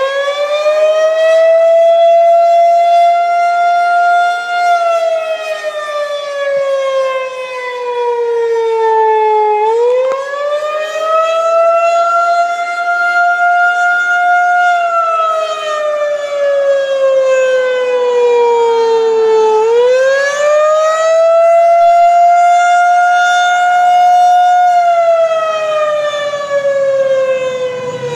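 Outdoor tornado warning siren sounding a loud wail during a scheduled system test. Its single tone holds high for a few seconds, slides slowly down, then climbs quickly back up, about every ten seconds; it climbs back twice.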